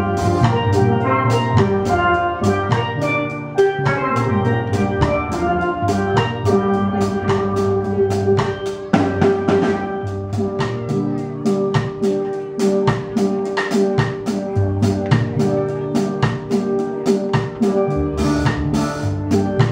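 Steel drum band playing a tune: struck steel pans ring out the melody over a steady drum-kit beat.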